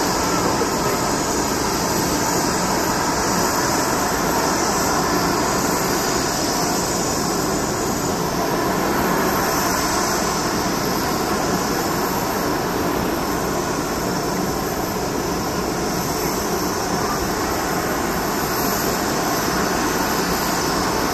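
Steady jet aircraft noise on an airport apron: an even, unbroken roar with no distinct events.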